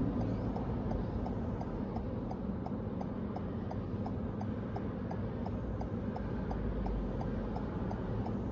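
Car's turn indicator ticking steadily inside the cabin over the low steady hum of the car and passing traffic, signalling for a U-turn.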